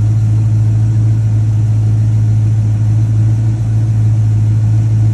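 1976 K10 pickup's engine idling steadily, running on its first start in over 21 years.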